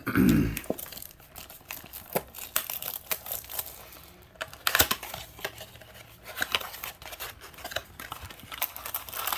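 A trading-card blaster box being torn open: its plastic wrap and cardboard tearing and crinkling in irregular bursts, with one sharp, loud rip about five seconds in.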